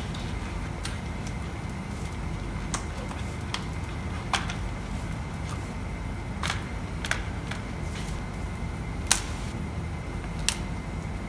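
Scattered sharp clicks and taps of hand tools and plastic parts being handled while a motorcycle's headlight assembly is taken off, about seven in all, the loudest about nine seconds in, over a steady low hum.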